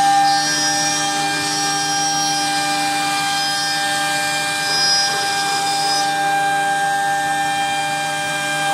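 NDG mini CNC router spindle running at speed, its end mill cutting a groove into a wood board: a steady high-pitched whine over the rasp of cutting, with a higher whine that comes and goes as the machine moves.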